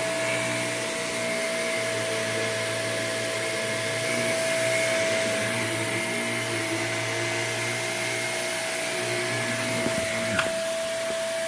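Vacuum cleaner running steadily, its motor giving a constant whine over a low hum. A brief tap sounds about ten seconds in.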